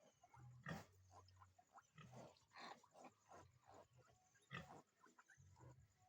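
Faint pig sounds: a quick string of short low grunts mixed with brief higher squeaks, consistent with a sow farrowing and her newborn piglets.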